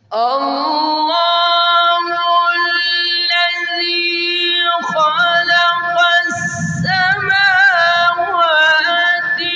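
Male Qur'an reciter chanting in melodic tajwid style, stretching the vowels into long held notes. A phrase begins at the very start with a rising note and holds steady for several seconds, then the voice turns into wavering, ornamented runs.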